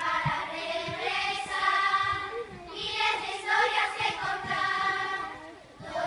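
Children's choir singing a song in phrases of held notes, with a short break about halfway through and another near the end.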